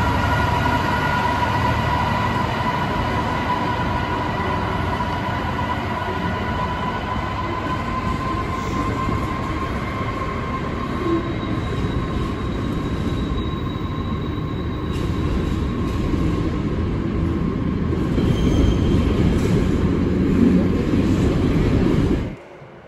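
Container freight train hauled by a Class 66 diesel locomotive rolling past: a high whine fades away over the first ten seconds or so while the loaded container wagons rumble by on the rails. The sound cuts off suddenly near the end.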